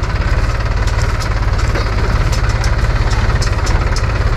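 Mahindra 275 DI tractor's three-cylinder diesel engine running steadily at low speed while pulling a loaded trolley, a low chugging note with a clattery diesel knock.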